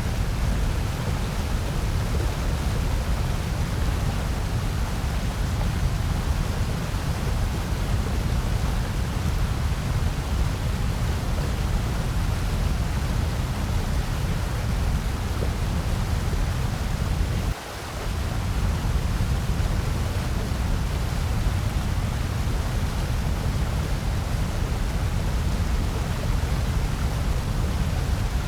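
Steady synthetic white noise: an even, unbroken hiss with most of its weight in a low rumble. It dips briefly about seventeen and a half seconds in.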